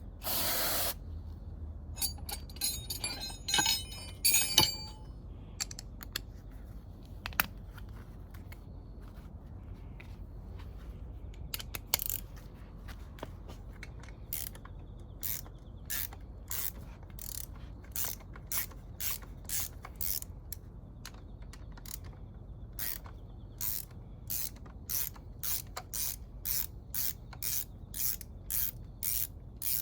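Hand ratchet wrench clicking in a regular run of short strokes, about one and a half a second in the second half, while bolts are worked on the top end of a Kawasaki Z400GP engine during teardown. A short hiss at the very start and scattered metal clinks a few seconds in.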